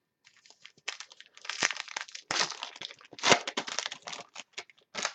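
Trading-card packaging crinkling and crackling as football cards are handled and sorted, in a run of irregular rustles with louder bursts about one, two and a half, and three seconds in.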